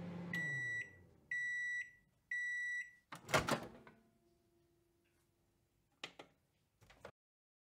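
Microwave oven stopping: its running hum winds down, it gives three even beeps about a second apart, and then the door latch pops open with a loud clunk. A faint tone and two small clicks follow near the end.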